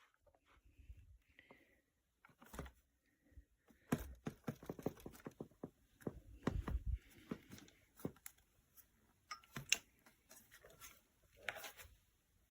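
Faint, irregular handling noises: scattered soft clicks, knocks and rustles, with no motor running.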